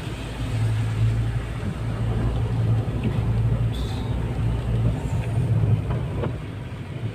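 Steady low engine and road drone heard from inside a moving vehicle, swelling and easing a little.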